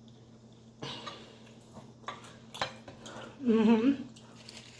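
Tableware at a meal: a few separate light clicks and clinks of dishes and cutlery. About three and a half seconds in comes a short wavering murmur from a person's voice, the loudest sound.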